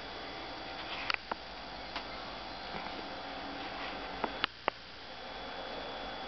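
Quiet room tone with a faint steady hum, broken by a few sharp light clicks: two about a second in and a quick run of three near four and a half seconds.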